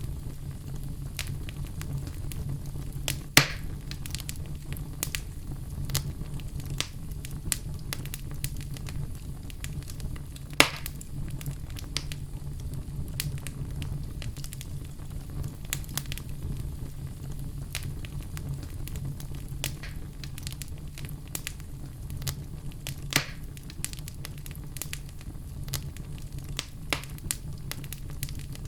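Oak wood fire burning in a fireplace: a steady low rumble of flames with frequent small crackles and a few sharper pops, the loudest about three seconds in, near the middle, and about two-thirds of the way through.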